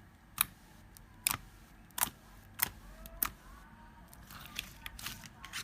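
Slime being handled, giving about five sharp clicking pops spaced under a second apart, then softer crackling near the end.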